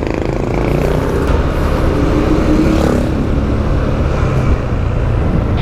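Motorcycle engine running while riding, heard through a helmet-mounted lavalier mic with wind rumbling over it. The engine note rises briefly about two to three seconds in.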